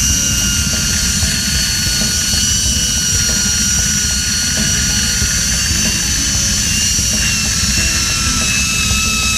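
Zipline trolley pulleys running along the steel cable: a steady high-pitched whine made of several tones that drift slightly in pitch. Under it, wind rumbles and buffets on the microphone as the rider moves along the line.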